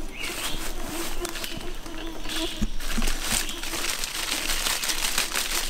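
Dry leaf litter rustling and crackling irregularly, with a couple of soft thumps near the middle.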